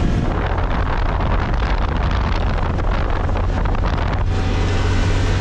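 Side-by-side UTV engine running steadily while driving, with wind rushing over the microphone for about the first four seconds before easing off.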